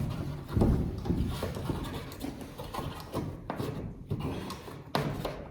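Irregular rubbing, rustling and knocks of electrical cable being handled and pulled through during house wiring.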